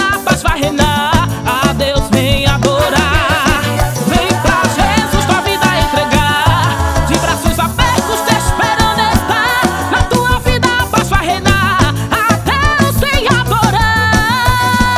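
Forró gospel band music playing an instrumental passage: a wavering lead melody over a steady bass and drum beat.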